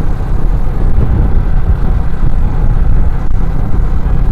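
Heavy wind buffeting on a helmet-mounted microphone on a motorcycle ridden at about 70 km/h. It is a loud, uneven low rumble that swamps the mic, the wind-noise problem that makes the rider's voice break up at speed.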